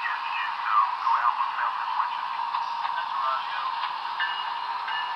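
Sound decoders of HO-scale GE ES44AC model locomotives playing diesel engine running sounds through small onboard speakers, thin with little bass. About four seconds in, a short ringing tone starts repeating roughly every two-thirds of a second.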